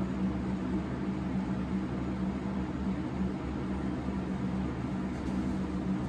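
Steady hum with an even hiss from an electric appliance or fan running.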